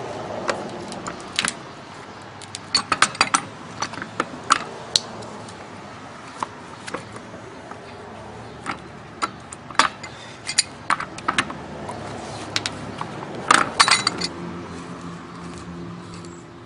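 Small metal scrap parts from a water heater's brass valve clinking and knocking as they are handled and taken apart, in irregular sharp clicks with a thick flurry about three quarters of the way through. A low steady hum comes in near the end.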